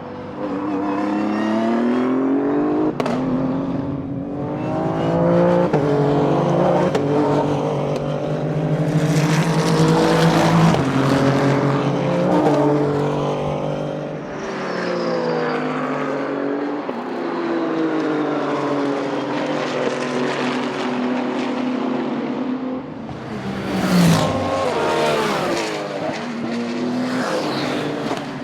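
Several Le Mans Cup race cars running hard and passing by, their engines climbing in pitch through each gear and dropping at every upshift, often more than one car at a time. One car passes close near the end, its pitch falling sharply as it goes by.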